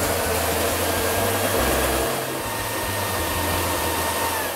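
Thermomix motor running steadily at speed 3, turning the butterfly whisk through sugar and eggs as they warm to 37 °C. Near the end its whine drops in pitch as the motor slows at the end of the timer.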